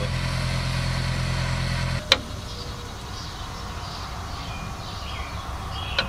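A steady low motor hum that cuts off with a sharp click about two seconds in. A quieter background with faint high chirps follows.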